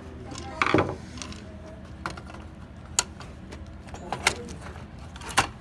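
Metal and plastic parts of a desktop computer case being handled and fitted by hand: a short clatter about a second in, then a few sharp single clicks.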